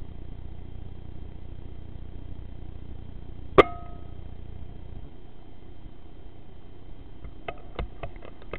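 Air Arms S510 .22 PCP air rifle firing once about three and a half seconds in: a single sharp crack with a brief ring. Near the end comes a quick run of small clicks from handling the rifle.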